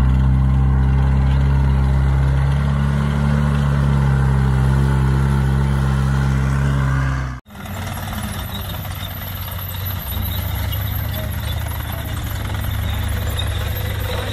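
A vehicle engine idling steadily with a deep, even drone. About seven seconds in it cuts off abruptly, and a lower, steadier engine hum takes over.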